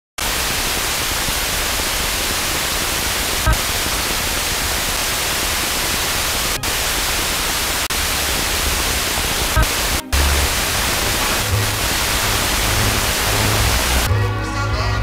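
FM radio receiver tuned to an empty channel, hissing with static, with a few sharp clicks. In the last few seconds a distant station's music fades up through the noise, brought in briefly by lightning scatter.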